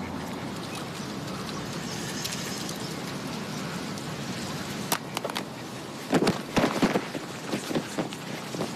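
Steady outdoor background hiss. A sharp click comes about five seconds in, and a few louder knocks and rustles follow about a second later.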